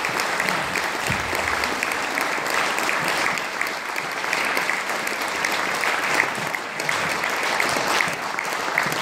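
Audience and choir applauding steadily at the end of a song, many hands clapping at once.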